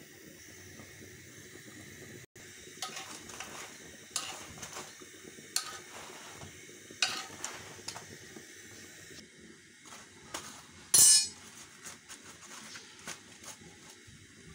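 Metal utensils knocking and clinking against a flat iron griddle (tawa) while roti cooks on it, over a steady low background noise. Short clinks come every second or so, and the loudest clatter is about eleven seconds in.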